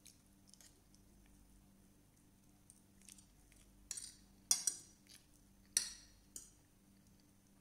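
Fork and spoon clinking and scraping against a dinner plate while eating, with a handful of sharp clinks in the second half over a faint steady hum.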